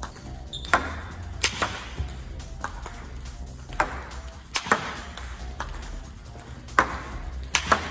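Table tennis ball struck in forehand smashes, a dozen or so sharp clicks off the paddle and table, often in quick pairs, over background music.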